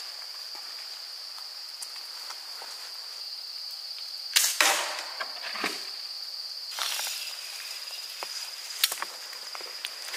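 A mechanical slingshot rifle fires about four seconds in: a sudden sharp snap of the released rubber bands with a brief whoosh, followed by a couple of smaller knocks. Later come a short scraping rush and a sharp click as the rifle is cocked and reloaded, all over a steady high-pitched drone.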